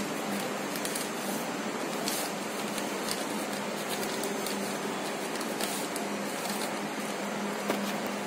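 Newspaper being folded and pulled open by hand, giving a few short crinkles and crackles over a steady background hiss and low hum.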